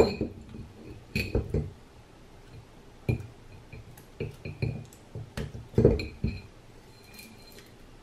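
Irregular clinks and knocks from handling the steel-laminated stator of a Ninebot Mini Pro hub motor, some with a short metallic ring; the sharpest knock comes right at the start.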